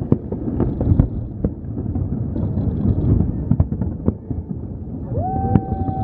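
Aerial fireworks bursting: a string of sharp bangs and booms over a steady low rumble. Near the end a horn sounds one held note for about a second.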